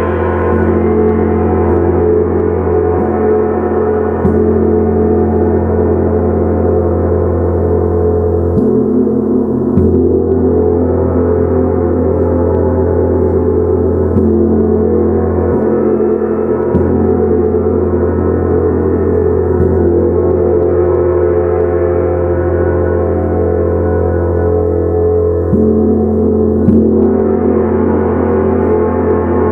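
A 70 cm Tibetan gong played with a soft mallet: a dense, continuous ringing wash that never dies away, renewed by fresh strokes every few seconds, one of them a little louder near the end.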